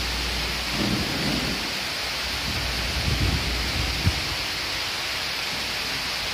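Steady background noise of a machine shop: an even hiss with a low rumble that fades about four seconds in, and one sharp knock near then.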